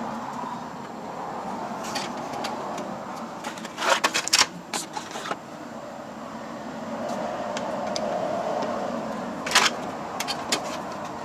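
Sharp metallic clicks and knocks of a hand tool working the Torx screws of a car door latch as they are tightened, in two short clusters, one a third of the way in and one near the end, over a steady background hum.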